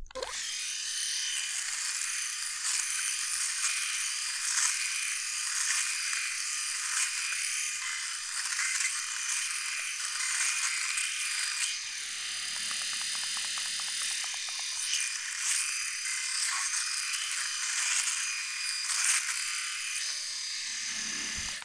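Philips S9000 rotary electric shaver running steadily as it is worked in small circles over week-old stubble on the neck, cutting the hairs.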